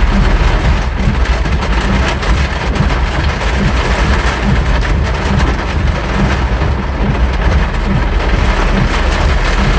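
Heavy rain pelting a car's roof and windshield, heard from inside the car: a loud, dense, steady patter over the low rumble of the car driving through water.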